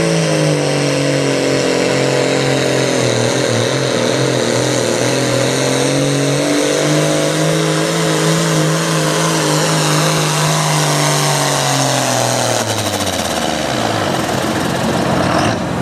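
John Deere diesel pro stock pulling tractor running flat out under load as it drags a weight-transfer sled, its engine held at a steady high pitch that wavers slightly early on. Over the last few seconds the revs wind down as the pull ends.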